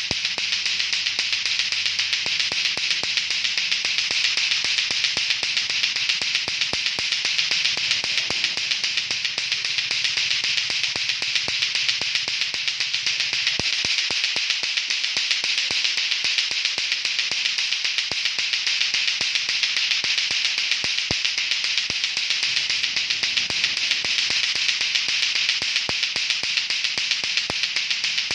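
Lato-lato clacker toy: two plastic balls on a string knocking together in a rapid, unbroken run of clacks.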